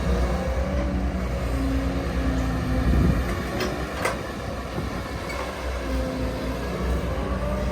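Caterpillar 315 DL hydraulic excavator running under load: a steady diesel rumble with a hydraulic whine that shifts in pitch as the controls are worked. Two sharp knocks come about halfway through.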